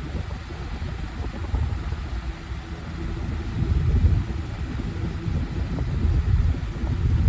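12-inch Better Homes and Gardens metal oscillating fan running on high: a low rumble that swells and fades, with a faint steady hum. Its blade is bent, so the fan is shaking as it runs.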